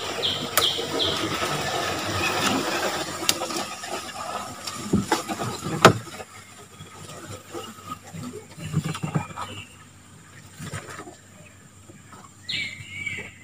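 Leaves and branches rustling and scraping, with scattered sharp knocks, as a wooden boat is worked through overhanging branches in flooded forest. The sound is busier in the first half and quieter after. A brief high call comes near the end.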